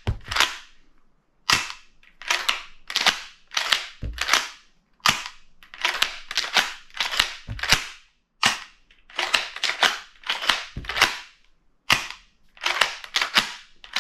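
Charles Daly 12-gauge semi-automatic shotgun, a Turkish clone of the Benelli M4, being unloaded by hand. Its bolt is racked over and over, giving sharp metallic clacks in quick pairs and threes. Each cycle works another shell out of the gun.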